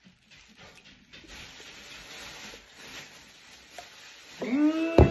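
A cracked coconut being worked apart by hand over a glass bowl: a steady rustling crackle of husk and shell. Near the end a voice lets out a loud, drawn-out 'ooh', rising and falling, with a sharp click in the middle of it.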